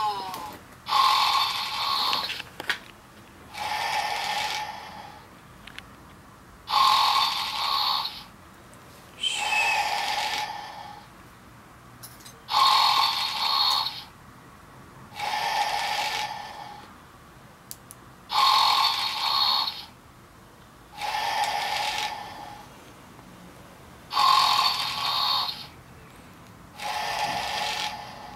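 Electronic toy dog playing recorded snoring: a snore on the in-breath, then a lower puff on the out-breath, repeating at a steady rhythm about every six seconds, five times over.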